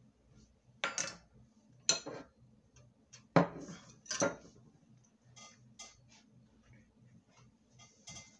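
Metal kitchen utensils knocking and clinking against a stainless steel mixing bowl: four sharp knocks with a brief ring in the first half, then a few lighter clicks.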